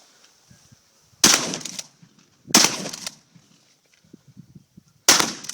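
Three shotgun slug shots from a Remington 870 pump-action, the first two about a second and a half apart and the third about two and a half seconds later, each with a short echo. A few light clacks are heard between the shots.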